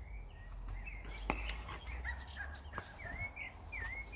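A songbird singing a run of short whistled notes that swoop up and down, over a steady low rumble, with one sharp click about a second in.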